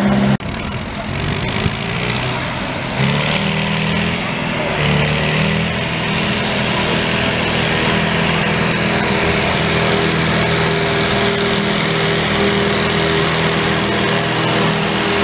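Farm tractor engine on a blue Ford tractor running steadily under heavy load as it drags a weight-transfer sled in a tractor pull. The engine note grows stronger about three seconds in.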